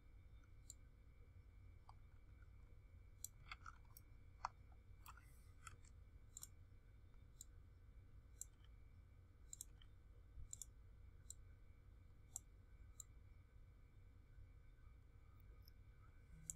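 Faint computer mouse clicks, scattered about a second apart, over a low steady hum of room tone.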